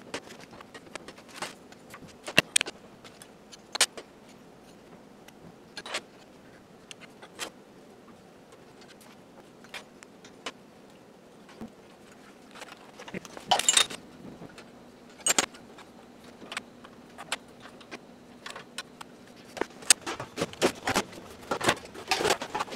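Scattered metal clinks and knocks of gas-range burner parts being handled and set down on a vintage Universal stove, with two louder clanks a little past halfway and quicker clatter near the end.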